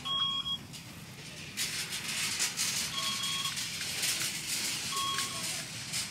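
Short electronic beeps, each a brief two-pitch tone, recurring about every two to three seconds over irregular shuffling and rustling noise.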